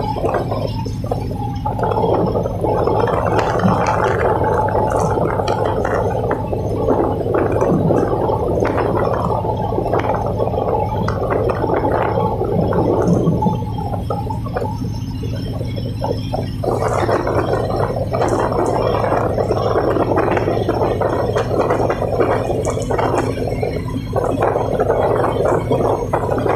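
Tugboat's diesel engines running steadily under a churning, gurgling rumble that swells and eases every few seconds.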